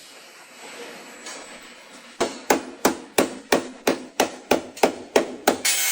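A hammer striking repeatedly, about eleven blows at roughly three a second, as in panel-beating body repair. A loud steady hiss starts near the end.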